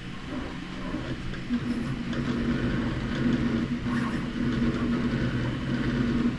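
Three 3D printers running the same print in step: their stepper motors hum in low tones that shift and change pitch every fraction of a second as the print heads move.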